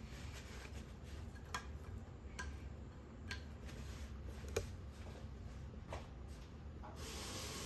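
Faint, scattered single clicks and light taps of kitchen handling over a low steady hum; a steady hiss starts near the end.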